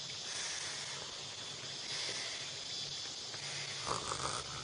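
Someone blowing air by mouth into the valve of an Intex Explorer 200 inflatable boat, a steady breathy hiss with a louder breath about four seconds in.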